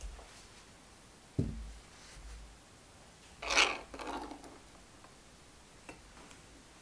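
Pull-tab lid of a can of fruit cocktail being torn open: a dull knock about a second and a half in, then a loud scraping rip a couple of seconds later as the seal breaks and the metal lid peels back, followed by softer scrapes and a small click.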